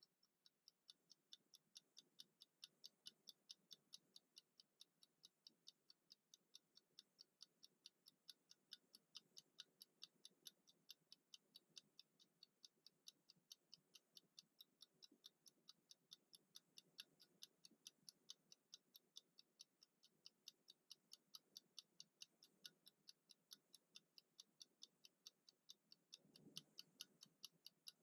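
Mechanical wind-up kitchen timer with a 60-minute dial ticking as it counts down: a faint, even run of quick ticks, about three a second.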